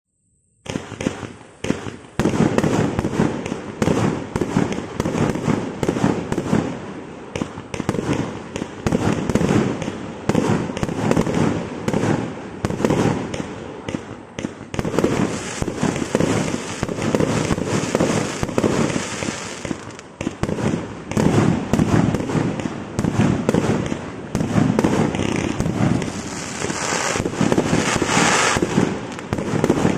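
A 200-shot firework cake (Witch Doctor) firing its tubes one after another: a fast run of sharp launch bangs and bursts, about three a second. It starts suddenly about half a second in and does not let up.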